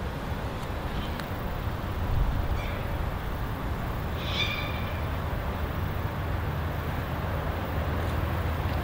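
Low, steady drone of an approaching V/Line N class diesel-electric locomotive hauling a passenger train, growing a little louder near the end. A bird chirps briefly about four seconds in, with a few fainter calls earlier.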